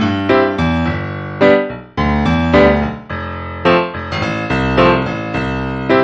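Background music played on a keyboard, a string of struck notes and chords that each start sharply and fade.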